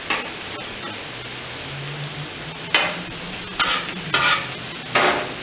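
Smashed potatoes and vegetables sizzling on a flat-top griddle, with a steady hiss. A metal spatula scrapes and taps on the griddle's steel surface four times in the second half as the potatoes are flipped.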